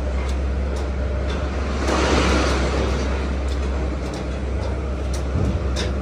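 Steady low hum of running machinery, with scattered light clicks and a brief hissing swell about two seconds in.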